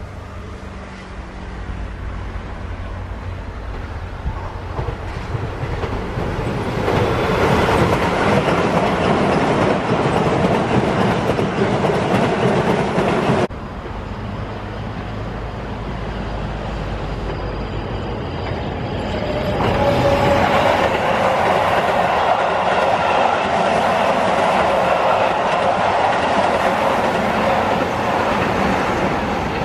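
Keihan 8000-series electric train running past at speed, its wheels clattering over the rail joints, growing loud and then cut off abruptly about halfway through. Then a second Keihan commuter train comes by, loud from about two-thirds of the way in, with a steady whine over the wheel noise, and fading near the end.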